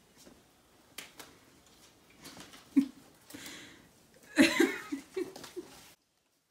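Party props being handled: paper and plastic rustling with a few sharp clicks and knocks, then a short loud burst of laughter about four and a half seconds in. The sound cuts off suddenly near the end.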